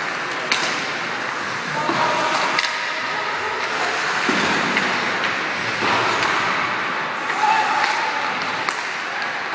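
Ice hockey play in an indoor rink: a steady wash of skating and arena noise, with several sharp clacks of sticks and puck. Voices can be heard in the background.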